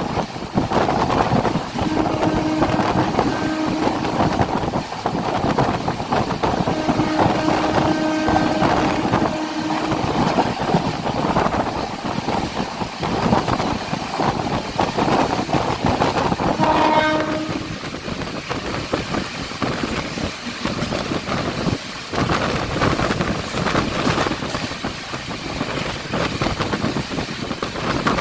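Train running along the track with a steady rumbling of wheels on rails, its horn sounding three times: a short blast about two seconds in, a longer one of about three seconds a few seconds later, and a brief blast near the middle.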